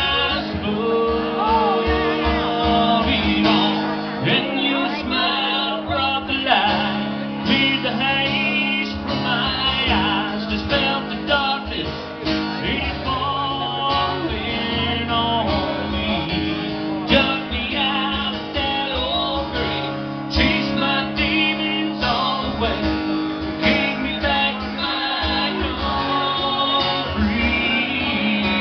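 Acoustic guitars strumming and picking a slow country ballad live, an instrumental stretch between sung verses.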